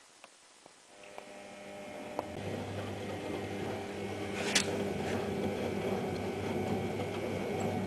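Privileg Ergonomic 1600 S washing machine starting up: a few clicks, then the motor and drum come in with a hum that builds over about two seconds and runs steadily, with a sharp click about four and a half seconds in. The drum bearing is badly worn.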